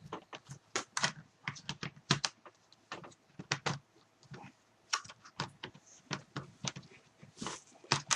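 Laptop battery pack being fitted into an HP DV6000 laptop and the laptop handled: a run of irregular sharp clicks and knocks.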